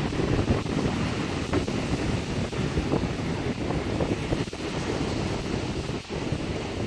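Heavy storm surf breaking and washing over rocky ledges, a continuous rushing roar of churning water. Wind buffets the microphone throughout.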